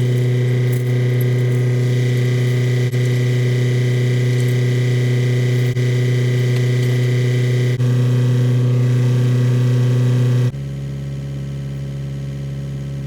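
Excavator diesel engine running steadily at a constant speed. About ten and a half seconds in, the sound drops abruptly to a quieter, lower drone.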